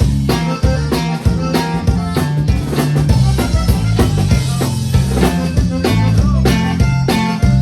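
Conjunto band playing live at a sound check, led by a drum kit with regular snare and bass-drum hits over a moving bass line.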